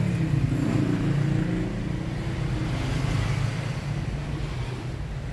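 Steady low rumble like an engine running, louder for the first three and a half seconds and then easing slightly.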